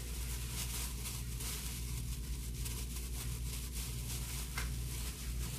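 Faint crinkling of disposable plastic gloves and soft tearing as cooked chicken is shredded by hand, over a steady low hum.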